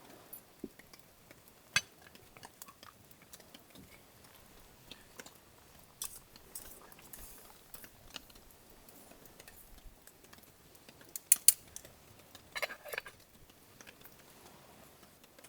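Scattered clinks and knocks of utensils against cookware, with one sharp click about two seconds in and a loud pair of clinks about eleven seconds in, followed by a short run of rattling.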